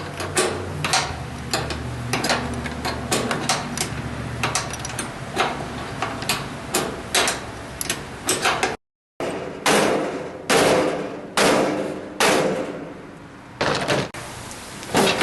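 Metal clattering and knocking as a clothes dryer's steel housing and parts are worked apart by hand, with a low hum under the first few seconds. After a short break come about six heavier blows, a little under a second apart, each with a metallic ring.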